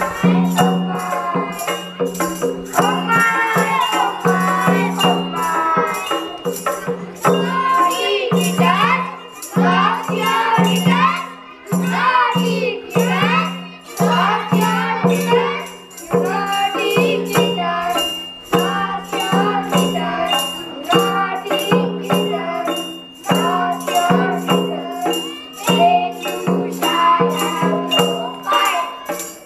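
A children's song: young voices singing a nursery rhyme in chorus over backing music with a steady rattling beat.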